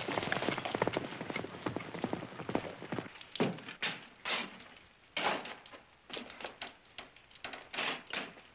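Several horses' hooves clattering as riders set off at speed, a dense rapid clatter that fades out after about three seconds. After that come a few softer, scattered scuffs.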